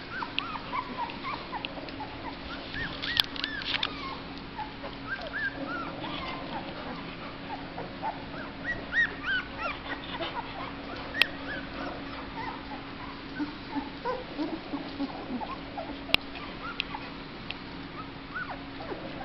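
Two-week-old black Labrador puppies whimpering and squeaking, many short high cries, which the owner takes for hunger. A few sharp clicks and a steady low hum sit under the cries.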